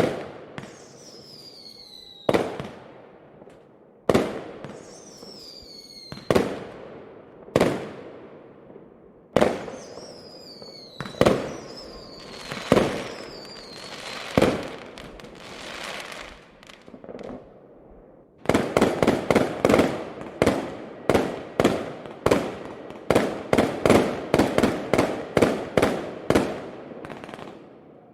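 Fireworks display: single loud bangs of exploding shells every second or two, several followed by high whistles falling in pitch, then from about two-thirds of the way in a rapid volley of bangs, several a second.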